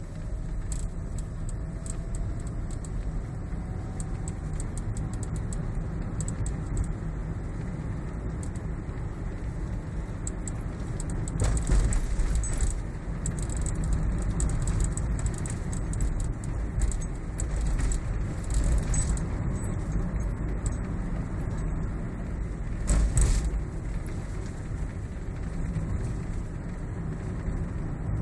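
Light rattling clicks from beneath a Toyota Prius's instrument panel, heard inside the cabin over a steady low rumble of road and tyre noise while driving. The rattle comes in two louder, denser spells, around the middle and again later on.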